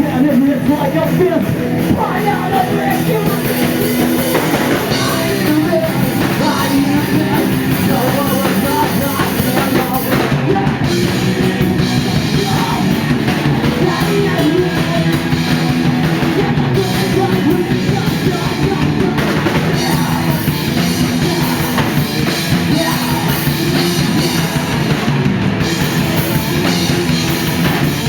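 Rock band playing live: electric guitars and a drum kit going loud and steady, in a heavy, punk-edged rock song.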